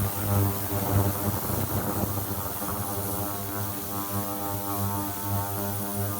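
Steady electrical hum from a washing machine's motor, a low mains-pitched tone with many overtones that holds level throughout.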